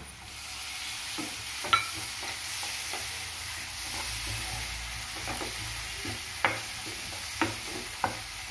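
Sliced onion and capsicum sizzling in hot oil in a non-stick frying pan. The sizzle picks up as chopped tomato is dropped in, and the spatula clicks against the pan a few times as the vegetables are stirred.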